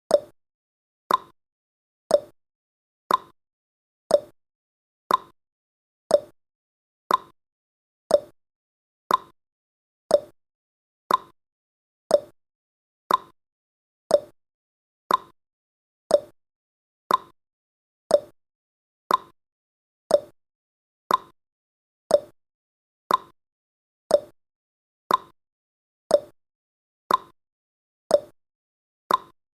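Clock tick-tock sound effect: one short tick each second, alternating between a lower and a higher pitch, marking the seconds of a countdown timer.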